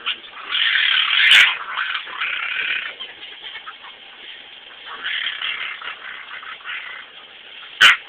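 Dog making strange raspy, grumbling vocalisations in several stretches, set off by its owner play-pretending to bite it. Two sharp clicks sound, one about a second and a half in and a louder one near the end.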